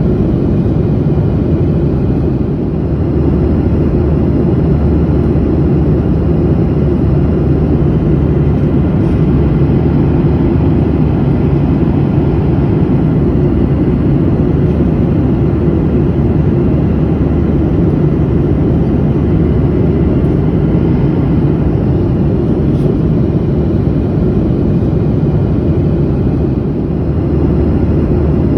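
Passenger airplane in flight heard from inside the cabin: a steady low drone of engine and air noise.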